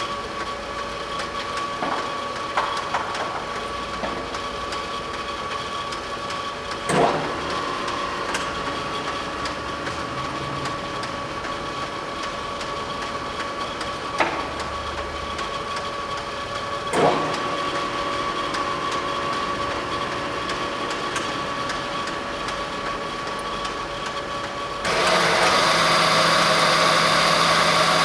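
YCM-SuperMax horizontal-vertical milling machine running with a steady gear whine. Its controls are worked while the spindle speed is changed, giving several sharp clunks and knocks. About 25 seconds in the machine gets suddenly louder and fuller as more of its drive starts running.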